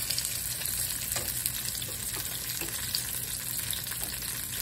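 Food frying in a pan: a steady sizzle of hot oil with scattered small pops.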